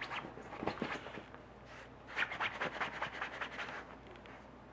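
Rapid scratching and rubbing on fabric in two spells, a short one at the start and a longer one from about two seconds in to nearly four seconds, made by an animal at the dog bed.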